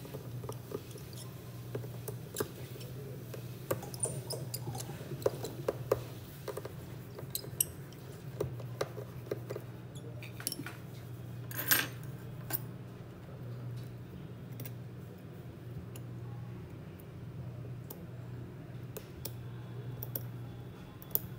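Small scattered clicks and taps of hand tools handled on a repair bench, with one sharper click near the middle, over a steady low hum.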